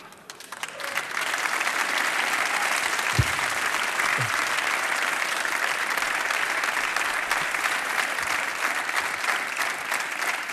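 Studio audience applauding, building up over about the first second and then holding steady.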